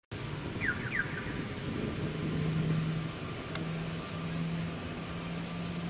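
Outdoor traffic ambience with the steady low hum of a vehicle engine running, which fades in and out. A few quick falling chirps come about a second in, and a single sharp click a little past the middle.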